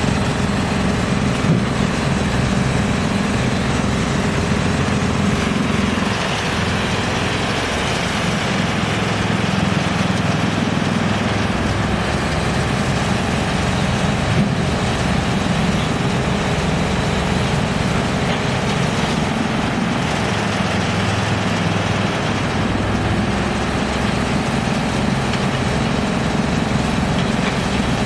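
Steady, continuous din of a large electric-motor wood chipper running for palm wood, mixed with the diesel engine of a tracked excavator working beside it.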